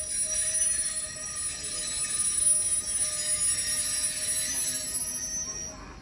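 Passenger train at a station platform: a steady high squeal and hiss of rail noise, cutting off suddenly just before the end.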